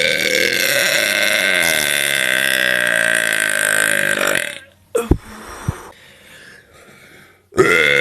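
A woman's long, loud, drawn-out burp that ends about four and a half seconds in. After a short lull with a couple of brief knocks, another long burp starts near the end.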